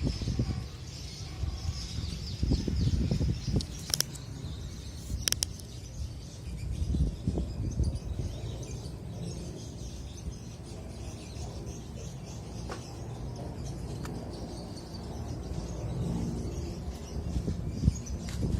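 Outdoor ambience: birds chirping faintly over a low, uneven rumble on the microphone, with two sharp clicks about four and five seconds in.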